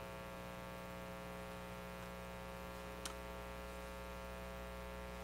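Steady electrical mains hum, buzzy and unchanging, with one faint click about three seconds in.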